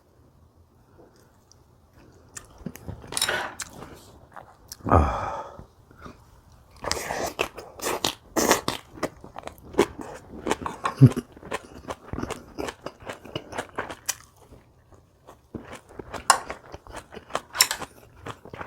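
Close-miked eating: crisp crunching and wet chewing of kimchi, in quick irregular bites. It is faint for the first couple of seconds, then dense and loud.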